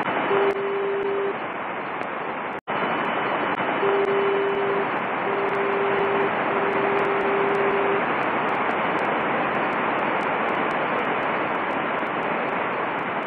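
Portable transistor radio hissing with static, a steady beep tone sounding through it: one short beep near the start, then three longer beeps from about four to eight seconds in. The static cuts out for an instant about two and a half seconds in.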